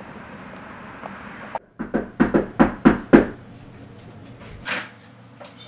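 A steady background hum that cuts off abruptly, then a quick run of about six sharp knocks in just over a second, followed by one softer knock.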